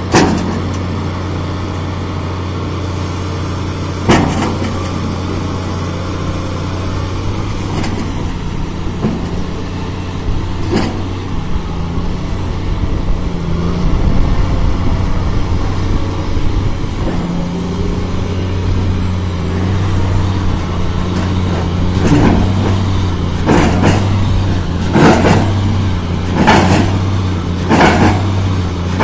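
Diesel engine of a MAIT HR 180 hydraulic rotary piling rig running steadily under load as it bores a pile with its kelly bar and auger. Sharp metal clanks come now and then, and then in a quick run over the last several seconds as the auger is raised out of the casing.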